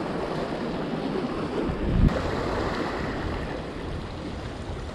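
Sea surf washing against the pier, with a strong wind buffeting the microphone. A brief low thump about two seconds in.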